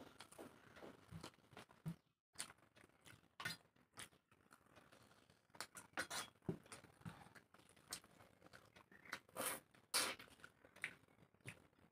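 Quiet sounds of eating rice and curry by hand from steel plates: soft chewing and mouth noises, fingers working rice against the plates, and scattered small clicks, the loudest near the end.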